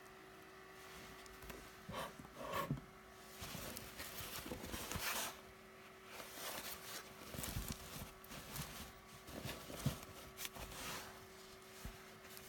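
Irregular rustling and soft knocks from a foldable non-woven fabric drawer organizer being handled, over a faint steady hum.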